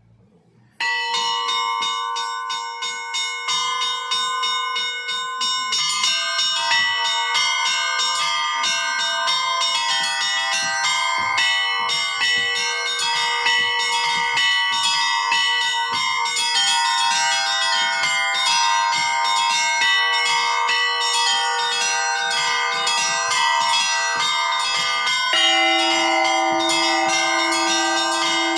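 Russian Orthodox church bells rung by hand (zvon): a fast, dense pattern of strikes on many bells sounding together, starting suddenly about a second in. A lower bell comes in near the end.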